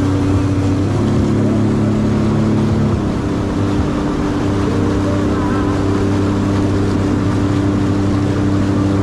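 Jet ski engine running steadily, its pitch rising briefly about a second in and dropping back about three seconds in as the throttle changes.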